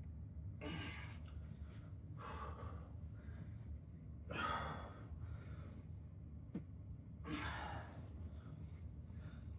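A man breathing heavily during a workout, with about four deep, breathy sighs a couple of seconds apart, over a steady low hum.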